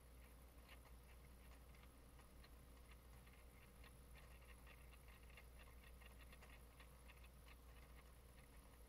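Near silence with faint, irregular light ticking, several a second, from a small motorized rotating display turntable turning, over a low steady hum.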